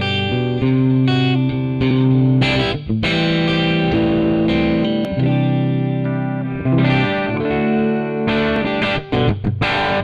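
Donner Hush X headless electric guitar played through the Mooer Prime P2's JTM45 high-gain amp model: distorted held notes and chords, breaking into short choppy stabs near the end.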